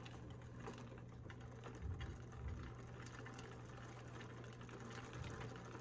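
Bicycle drivetrain turned by hand: chain running over the gears with faint rapid ticking, as the shifting is checked after a cable adjustment. A low steady hum sits under it.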